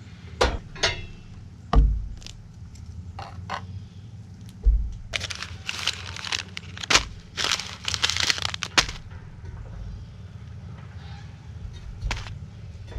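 Handling noise: a few sharp knocks and thuds, with about four seconds of crackling rustle starting about five seconds in.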